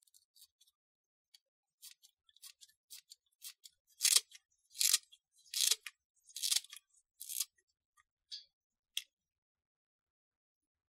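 Scissors snipping pandan leaves into a glass blender jar: an irregular run of short, crisp cuts, loudest in the middle, stopping near the end.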